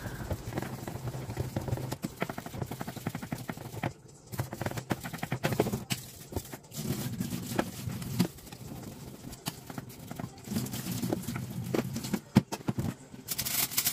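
Kitchen knife blade being stroked over and over across a whetstone: a rapid run of short scraping strokes. Near the end, tap water runs into the stainless-steel sink.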